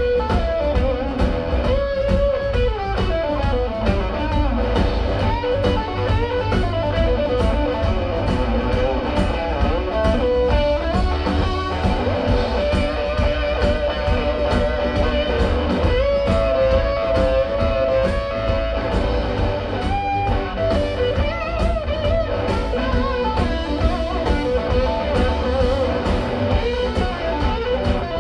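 Live blues-rock band playing an instrumental passage: an electric guitar carries a melodic line with bent, held notes over bass and a steady drum beat.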